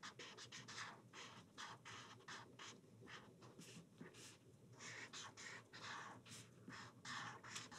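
Marker scribbling on paper: faint, quick, irregular back-and-forth strokes as an area is filled in with colour.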